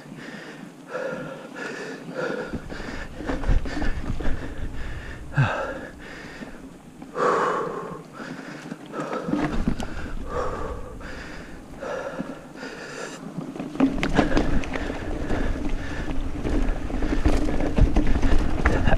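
A mountain biker breathing hard in short, repeated breaths while riding. From about two-thirds in, the rumble and rattle of the bike over the dirt trail grows louder and busier.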